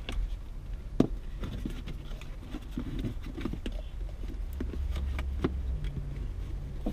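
Plastic heater box lid being set onto the heater box and worked into place: scattered light knocks and scrapes of plastic on plastic, the sharpest knock about a second in.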